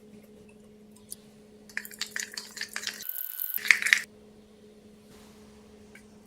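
Toothpaste slime being squeezed and crushed by hand, giving a burst of crackling clicks and small wet pops for about two seconds, starting around two seconds in, over a faint steady hum.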